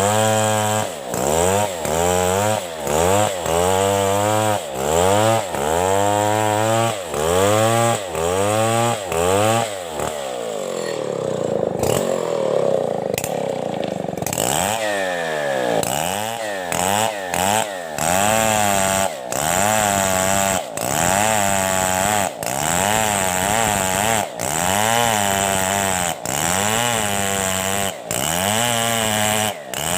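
Two-stroke chainsaw cutting lengthwise through a coconut trunk, its engine speed rising and falling about once a second as it works in the cut. For a few seconds near the middle it runs steadier, without the swings.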